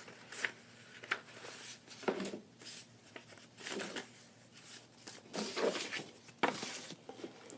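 Intermittent rustling and soft handling noises of paper and packaging being moved about, with a longer rustle about six seconds in.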